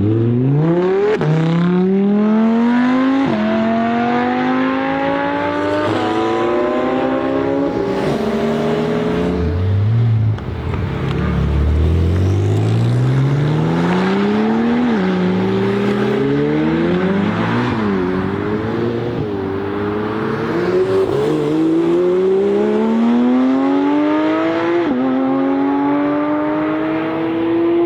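A high-performance car engine accelerating hard through its gears. Its pitch climbs steadily and then drops suddenly at each upshift, again and again, at a steady loud level.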